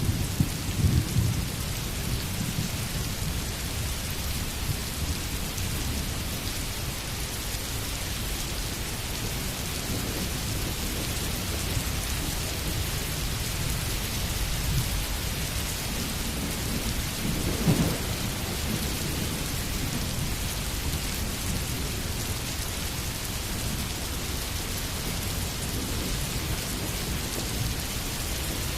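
Steady rainfall with low rumbles of thunder; the strongest rumble swells about two-thirds of the way through.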